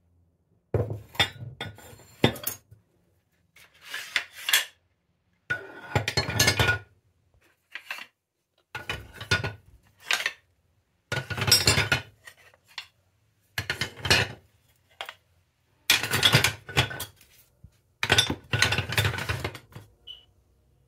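Wooden spoons, spatulas and metal ladles being dropped and set into ceramic utensil crocks, clattering and clinking against the pottery. The sound comes in repeated short bursts every couple of seconds, with quiet gaps between.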